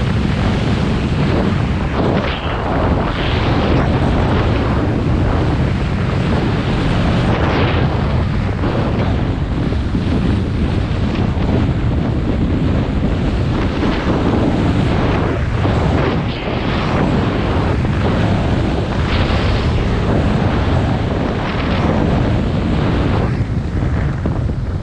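Wind rushing over the camera microphone at skiing speed, with skis hissing and scraping on groomed snow in a series of swells through the turns.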